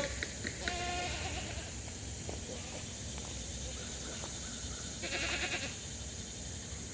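Kiko goats bleating, two wavering bleats: a short one about half a second in and a longer one about five seconds in.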